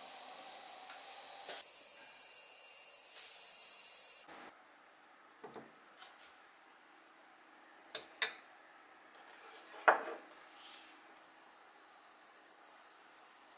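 A steady, high insect chorus that cuts off abruptly about four seconds in. A few light clicks and knocks of tableware being set down on a wooden desk follow, the loudest near ten seconds. The insect chorus comes back near the end.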